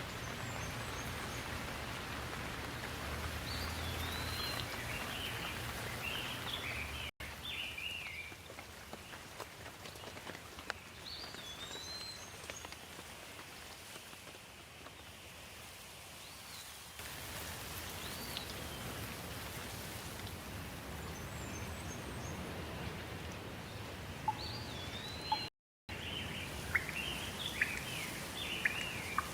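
Steady rain with birds chirping every few seconds, and a few sharp drips near the end. The sound cuts out completely twice for a moment.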